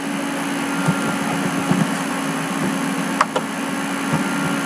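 Steady hiss and low hum of the room and recording microphone between phrases of narration, with a couple of faint clicks, one about two-thirds of the way through and one near the end.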